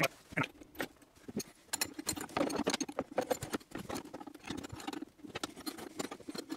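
Light metal clicks and scrapes of a nut, washers and spanners being worked onto the inverter's positive terminal bolt, coming thick and fast after the first couple of seconds.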